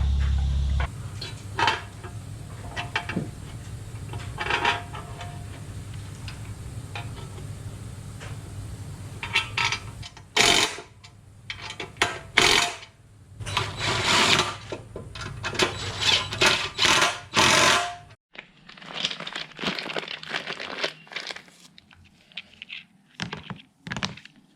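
Metal parts and hand tools clinking and clattering in irregular short knocks and clicks. A low steady hum stops about a second in.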